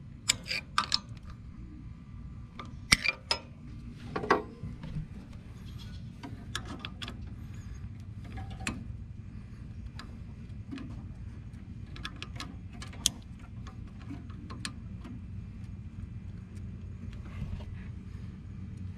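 Hand-handling noises on a tractor engine: scattered clicks and light metal knocks as parts and wires are worked, several sharper ones in the first few seconds and a cluster again about two-thirds of the way through, over a steady low hum.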